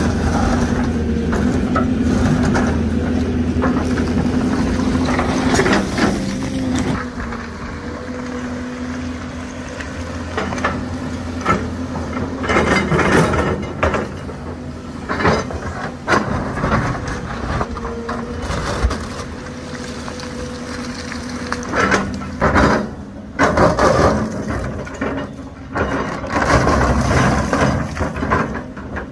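Crawler excavator's diesel engine running under load, with the steel bucket scraping and knocking against rock and rubble: a series of loud clanks and crunches of stone over the steady engine note.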